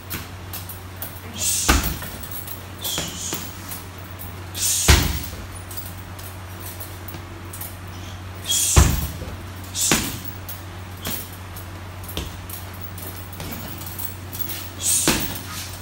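Gloved punches and strikes landing on a hanging heavy bag: about half a dozen hard hits at irregular intervals, with fainter taps between them, over a steady low hum.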